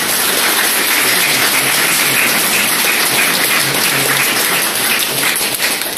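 People applauding: steady clapping from a group of hands.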